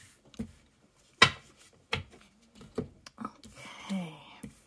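Cards being laid down and slid on a tabletop: a string of sharp slaps and taps, the loudest about a second in. Near the end comes a brief voice-like sound.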